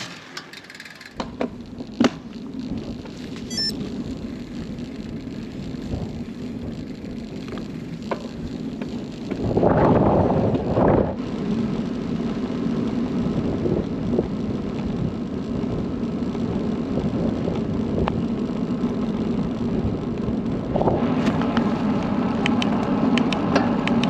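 Giant carbon road bike being ridden on tarmac: tyre noise and drivetrain whir, growing louder through the stretch. A few sharp clicks near the start and a loud whoosh about ten seconds in.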